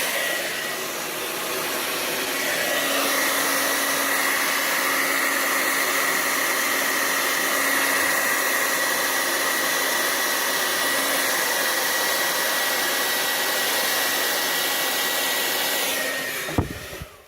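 Hair dryer running on high with the cool button pushed in, a steady blowing noise with a faint whine. It is switched off near the end, with a click.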